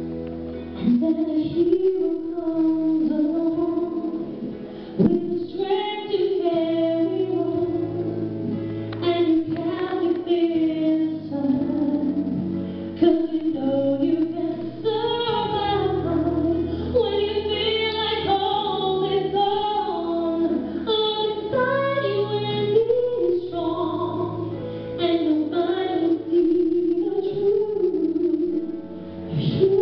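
A young woman singing a ballad solo into a handheld microphone, amplified in a school auditorium, over instrumental accompaniment with held chords underneath the melody.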